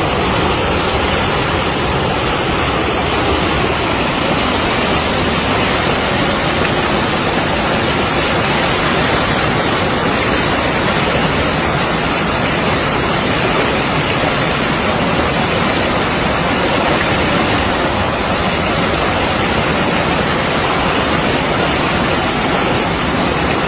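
Floodwater rushing in a steady, loud, unbroken torrent.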